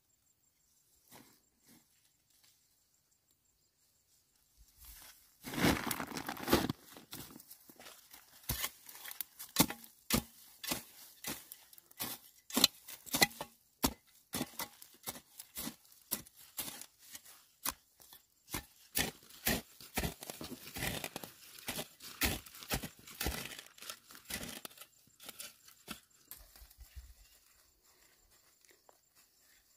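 A hoe chopping into and scraping dry, loose soil, pulling earth over fertilizer granules: a run of irregular sharp strikes and scrapes, more than one a second, starting about five seconds in and thinning out near the end.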